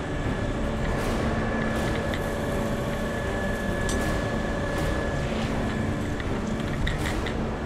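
Fire truck's engine and pump running steadily, a constant mechanical drone, with a few short sharp knocks during it.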